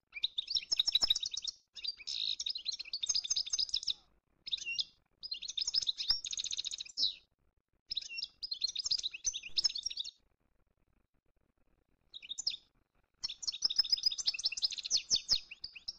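A small songbird singing in rapid, high twittering phrases of a second or two each, with short breaks between them and a longer pause of about two seconds a little past the middle.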